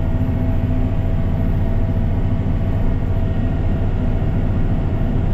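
Steady low drone of a tractor engine working in the field, heard from inside the cab.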